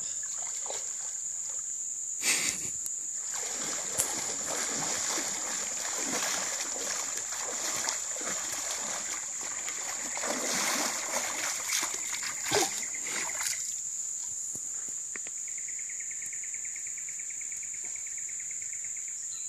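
Legs wading through shallow creek water, splashing unevenly from about two seconds in until about thirteen seconds in, over a steady high insect chorus. Near the end the splashing stops and a fine, even insect buzz comes in.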